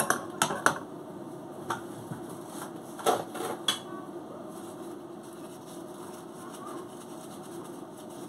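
Metal kitchen tongs clicking and clattering against a frying pan and a plate: a few sharp knocks in the first second and a quick cluster about three seconds in, over a steady low hum.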